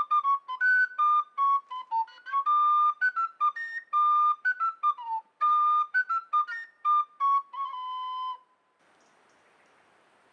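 A flute melody of short and held notes, moving in steps around one pitch range, which stops about eight and a half seconds in. A faint steady hiss follows.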